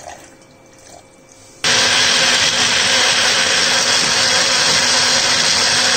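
Electric mixer-grinder blending wood apple pulp with jaggery and water into juice: the motor starts abruptly about two seconds in and runs steadily at full speed with a steady hum.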